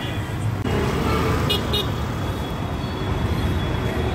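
Street traffic with vehicle engines running, and two quick horn toots about a second and a half in.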